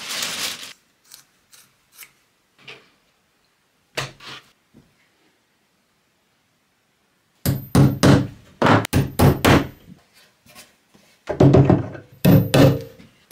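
Dried rabbit skins and a wooden board being handled on a workbench: a few faint taps first, then from about halfway a quick run of wooden thunks and knocks.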